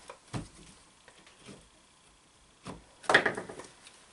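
Stator windings of a Delco CS-130 alternator being pried and pulled off the rear housing: a few light knocks and clicks, then a louder rattling clatter about three seconds in.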